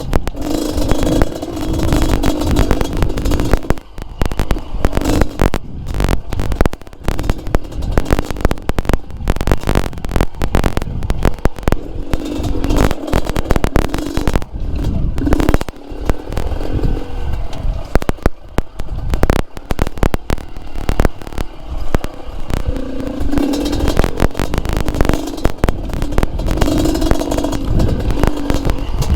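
Yamaha DT trail bike with a two-stroke Yamaha RX-King engine running over rocky ground, its engine note swelling and easing with the throttle. Dense rattling and knocks run over it, strongest in the middle stretch where the engine drops back.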